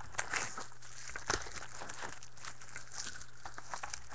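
Plastic packaging crinkling and rustling as trading cards are handled, with scattered small clicks and one sharper click about a second in.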